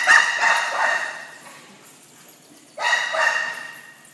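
Puppies barking in play: a flurry of sharp barks at the start and another flurry near the end, each echoing off the walls of a large bare room.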